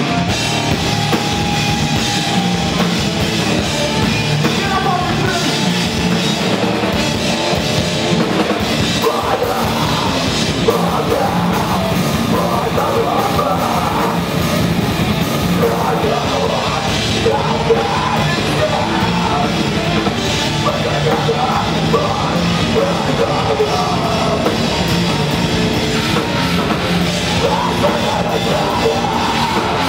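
Live rock band playing loud, with a drum kit, electric bass and electric guitar, and a vocalist singing into a microphone.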